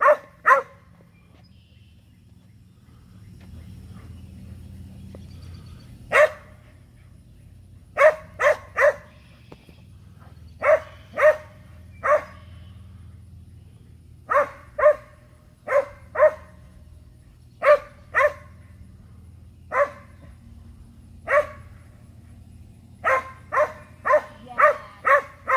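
A dog barking again and again: single barks and pairs spaced a second or two apart, quickening into a run of rapid barks near the end.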